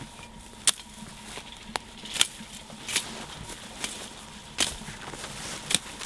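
Footsteps crunching through dry nalca (Gunnera tinctoria) leaf litter, the dead leaves breaking with a papery, cardboard-like crackle. The sharp cracks come about once a second at uneven intervals.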